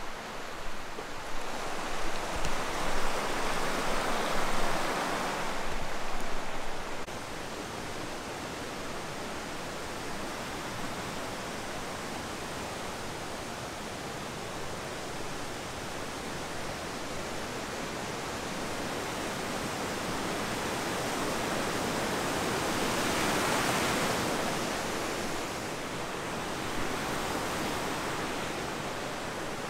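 Rushing mountain creek, white water pouring over rocks in a steady hiss. The sound is louder and more uneven over the first several seconds and swells again about two-thirds of the way through.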